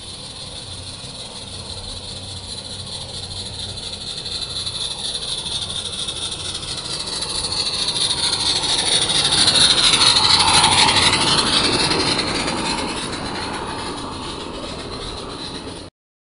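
A small live-steam garden-railway locomotive hauling two coaches passes by, giving a hissing, mechanical running sound. The sound grows louder as it approaches, is loudest about ten seconds in, then fades as it moves away.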